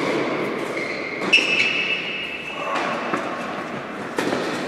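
Tennis rally on an indoor hard court: racket strikes and ball bounces, five sharp knocks a second or so apart, echoing in the hall. A high steady whine runs behind them.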